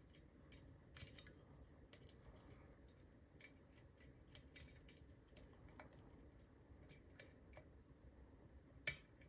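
Faint, scattered small metallic clicks and ticks of a lock pick working the pin stacks of a cruciform (cross-key) padlock under tension, with one slightly louder click near the end.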